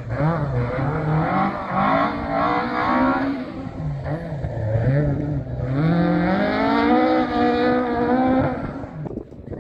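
Rally car engine revving hard through a gravel hairpin, its pitch rising and falling with the throttle, then climbing steadily as the car accelerates away, until it drops away sharply about a second before the end.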